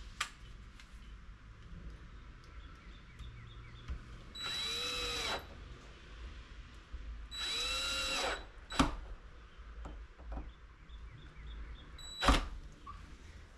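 Cordless drill driving the door's latch plate screws in two short runs of about a second each, the motor's pitch rising and then falling each time. A couple of sharp clicks follow.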